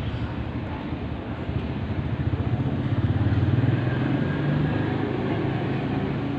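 A motor vehicle engine running nearby, a steady low rumble that swells a little about three seconds in.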